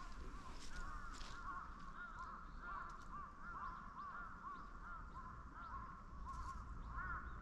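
A bird calling over and over, a steady run of short rising-and-falling notes, two or three a second.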